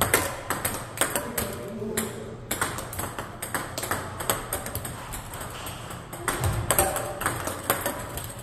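Table tennis balls clicking off bats and table, many quick, irregular hits overlapping throughout.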